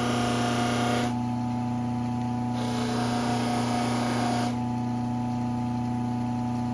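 An electric bench power tool running with a steady motor hum. A knife blade is pressed against it twice, each time giving about two seconds of hissing grinding.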